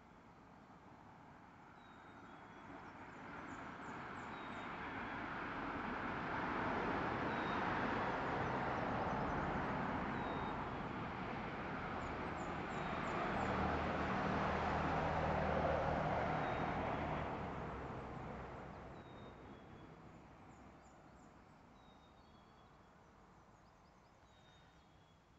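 Distant traffic crossing a bridge: tyre and engine noise swells, peaks twice and fades away, the second pass carrying a low engine hum. Faint bird chirps sound over it.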